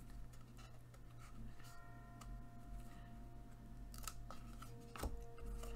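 Baseball trading cards being handled and slid off a stack: soft scraping of cardboard on cardboard as each card is shuffled to the back, with a few light card snaps about four and five seconds in.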